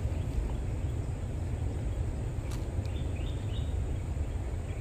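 Outdoor background noise: a steady low rumble, a single sharp click about two and a half seconds in, and a few short bird chirps soon after.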